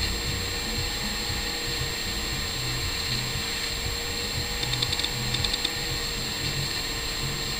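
Aquarium air pump running with a steady hum under the bubbling of air stones in the fish tank. Two brief bursts of light ticking come around five seconds in.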